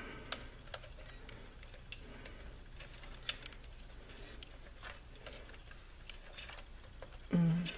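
Faint, scattered light clicks and taps, one or two a second, of hands working a wire into a metal chassis, over a low steady hum.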